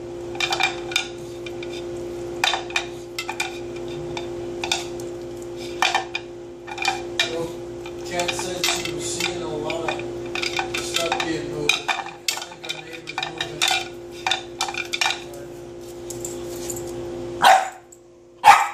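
Welsh corgi licking an empty plastic food bowl, her tongue slapping and scraping it in quick, irregular strokes over a steady low hum. Near the end she stops licking and barks twice.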